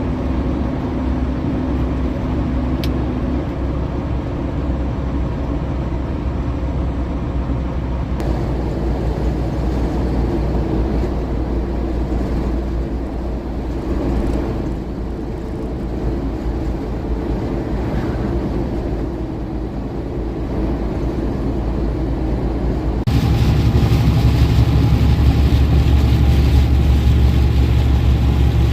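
Steady low drone of a heavy diesel truck engine with vehicle noise, in cut-together stretches, getting noticeably louder and deeper about 23 seconds in.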